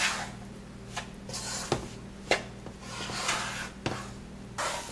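A spoon stirring and scraping flour through melted ghee in a non-stick pot, with swishing scrapes broken by a few light knocks of the spoon against the pot.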